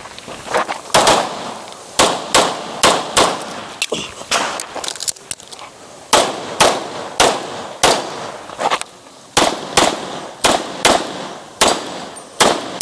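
Pistol shots fired in a fast string during an IPSC stage, many of them in quick pairs about half a second apart, with short pauses between groups as the shooter moves between targets.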